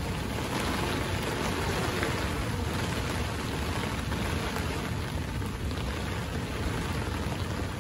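Heavy rain pouring down steadily onto a lake and the bankside, a continuous hiss, with wind rumbling on the microphone underneath.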